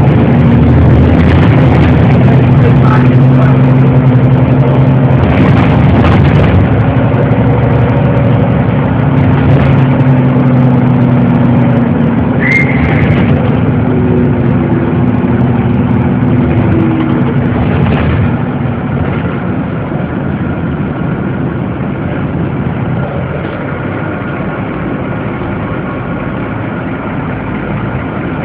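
City bus engine running with a steady low drone and road noise, heard from inside the bus, growing quieter after about eighteen seconds. A brief high squeak about twelve seconds in.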